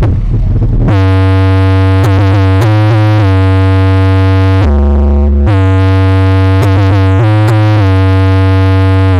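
Stacked loudspeaker cabinets of a sound-racing (SPL contest) rig playing a synthesizer track very loud: long held notes over a deep bass, changing pitch every second or so, with the notes sliding down in pitch near the end. The system is being pushed for a decibel-meter reading.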